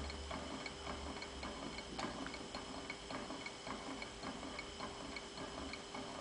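Small Ross-yoke Stirling engine running steadily, its flywheel and yoke linkage making an even, light ticking about three times a second.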